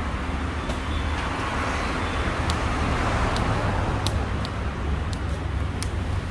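Steady street traffic noise with a low rumble, with a few sharp, short clicks scattered through it.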